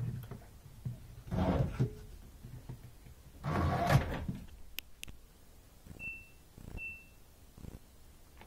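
Two bursts of knocking and rustling from handling, the second the loudest, then two sharp clicks, followed by two short high beeps from an LG front-loading washer's control panel as its buttons are pressed.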